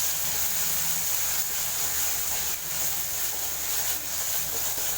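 Ginger-garlic paste and onion masala sizzling steadily in hot oil in a pan as it is sautéed.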